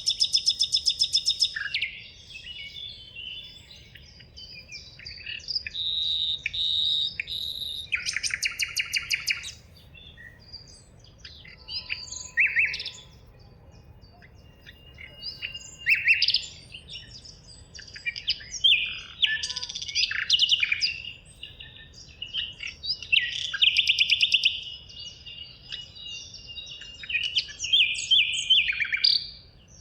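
Several songbirds singing and calling over one another, high-pitched. There is a fast trill at the start and another about eight seconds in, with short chirps and whistles in between.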